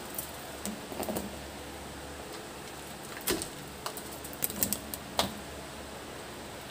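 Kitchen sounds at a wok of stock heating on a gas stove: a steady low hiss with a few scattered light clicks and taps, the sharpest a little past the middle.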